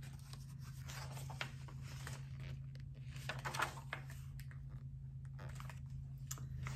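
Paper rustling and scraping as a hardcover picture book is opened and its pages are turned and smoothed by hand, with scattered small taps. A steady low hum runs underneath.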